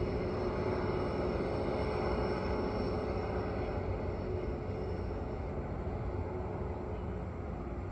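TasRail freight train hauled by two diesel locomotives, TR13 and TR02, running steadily at a distance: a continuous rumble and hum with a few steady higher tones that fade about five seconds in.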